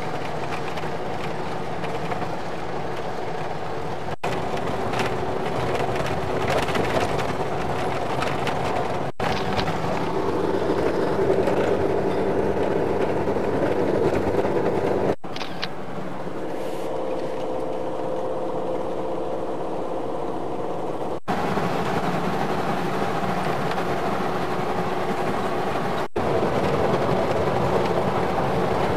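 Steady engine and road noise heard from inside a moving vehicle, with a constant hum. The sound breaks off abruptly about five times where the recording jumps to a new clip.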